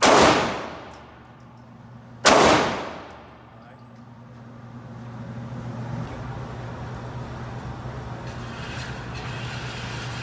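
Two pistol shots about two seconds apart, each echoing off the walls of an indoor range. They are followed by a steady mechanical hum that slowly grows louder, the overhead target carrier running.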